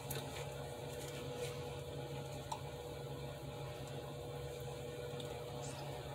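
Thick metallic gold acrylic pouring paint squeezed from its squeeze bottle into a plastic cup: a faint squish, a couple of soft clicks, over a low steady room hum.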